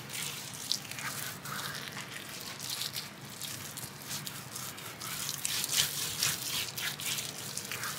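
A bare hand smoothing and patting a mustard-coated raw beef brisket, making irregular soft rubbing and slapping strokes on the meat's surface.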